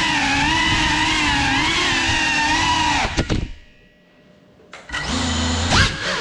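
GEPRC Cinelog35 cinewhoop drone's brushless motors and ducted propellers whining, the pitch rising and falling with throttle. About three seconds in the whine cuts away almost to nothing, then spools back up about a second and a half later.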